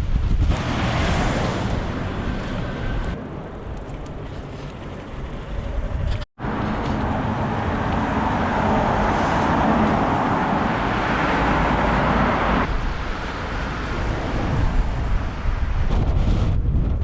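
Strong wind buffeting the microphone with a heavy low rumble, and a rushing hiss that swells over it twice, the second time for about six seconds. The sound cuts out for an instant about six seconds in.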